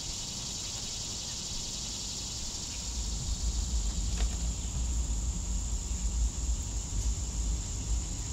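Steady, high, hissing chorus of insects. A low, unsteady rumble joins about three seconds in.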